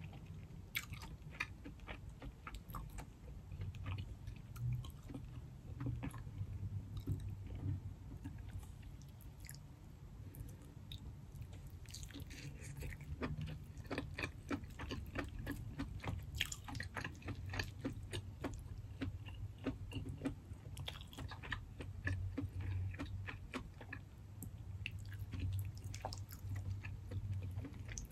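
A person chewing seafood with the mouth close to the microphone, with many small wet clicks and smacks throughout. Fingers squishing through sauce-coated shrimp and crab add to the clicks.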